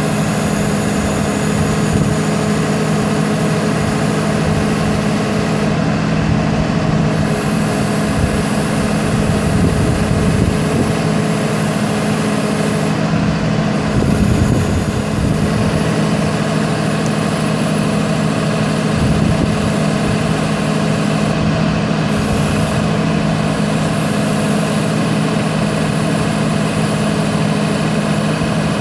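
Cummins 6.7-litre inline-six turbo diesel of a Dodge Ram 5500 bucket truck running steadily, a constant low drone, while the engine powers the hydraulic boom as it is lowered.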